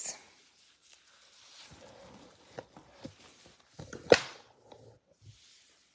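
A quiet room with a few faint handling knocks, and one sharp click about four seconds in.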